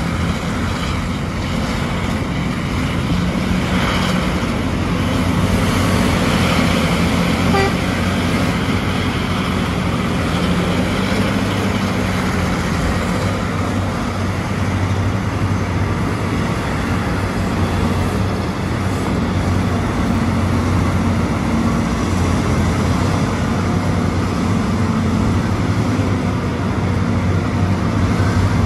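Terex RH170 mining front shovel running under load as it swings and digs: a steady, deep engine drone, with a brief rise in rushing noise about four to eight seconds in.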